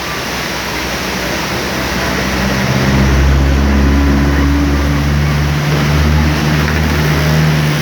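Waterfall rushing steadily. About two and a half seconds in, a motor vehicle's engine drone comes in underneath it and stays, low and steady.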